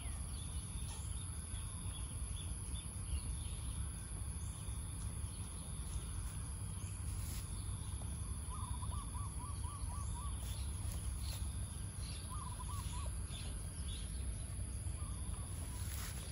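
Rural outdoor ambience: a steady high insect drone over a low rumble, with a bird calling in quick runs of short notes, about seven in a row around the middle and a shorter run of three a little later. Faint light clicks and rustles come from the dog nosing in the grass.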